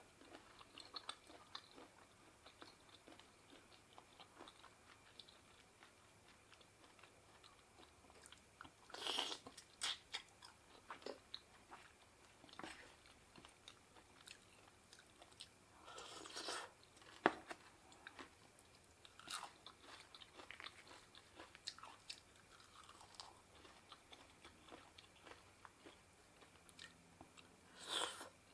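A person chewing and biting food close to the microphone, eating seafood papaya salad, with quiet scattered mouth clicks and a few louder short mouth noises about a third of the way in, midway and near the end.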